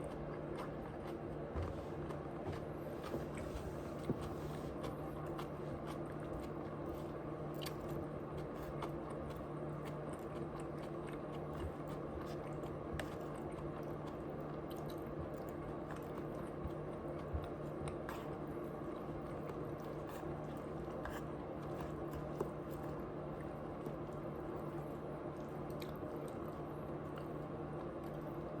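A person chewing and biting food close to the microphone, with scattered sharp crunches, a few standing out louder. A steady low hum runs underneath.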